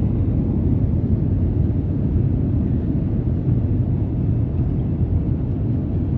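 Steady low rumble of a jet airliner's engines and wheels, heard from inside the cabin as the plane rolls along the runway.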